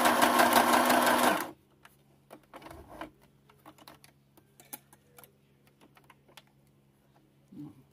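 Electric sewing machine stitching fabric bias binding onto clear plastic, running steadily with a humming motor, then stopping about a second and a half in. Soft scattered clicks and rustles of the work being handled follow.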